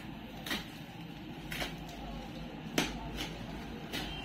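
Woven plastic sack wrapping of a parcel being picked at and torn open by hand: a handful of short, sharp crackles and rustles over a low steady background hum.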